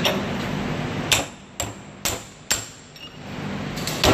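Hammer striking the handle of a steel bench vise to cinch the vise tighter: five sharp metallic blows with a brief ring. Four come about half a second apart, and the fifth comes after a pause near the end.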